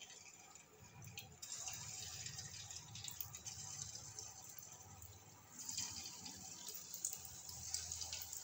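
Potato-and-pea balls deep-frying in medium-hot oil: a fairly faint bubbling sizzle with fine crackles, swelling about a second in and again past five seconds as more balls go into the oil.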